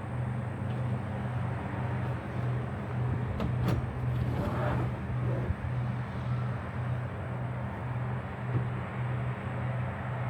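A steady low mechanical hum that pulses in a regular rhythm, with a few sharp clicks near the middle.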